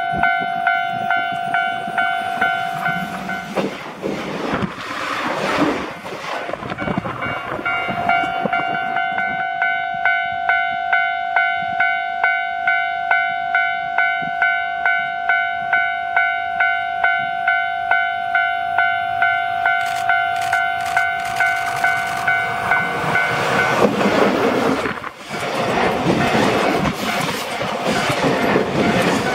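A railway level-crossing warning bell dings steadily, about one and a half strokes a second. It breaks off about four seconds in and starts again, while a JR Shikoku 8000 series electric train runs past. The bell stops again as an EF65-hauled container freight train reaches the camera, and the wagons' passing rumble and wheel clatter become the loudest sound near the end.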